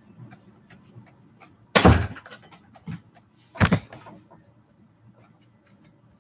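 Two loud thumps about two seconds apart, the first a door banging shut. Faint ticking runs underneath.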